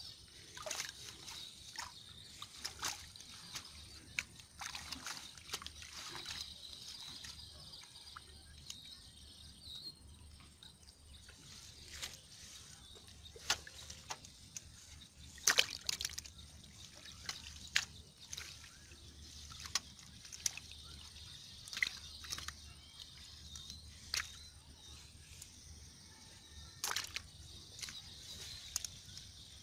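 Shallow pond water sloshing and trickling as hands sift through mud and duckweed in a fine-mesh net, with scattered small splashes, a couple of them louder, over a faint steady high hiss.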